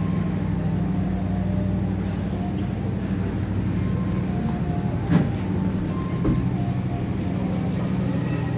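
Steady low rumble and hum inside an economy-class passenger train carriage, with two short knocks about five and six seconds in.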